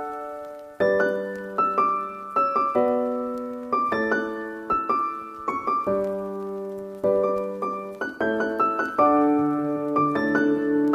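Background piano music: soft chords and melody notes struck every half second or so, each decaying until the next.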